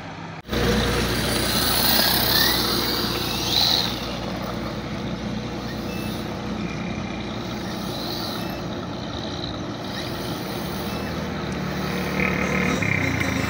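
Monster-tyre RC car's brushless motor whining as it accelerates, with its tyres churning and scattering gravel, over a steady low engine hum. The sound jumps up suddenly about half a second in.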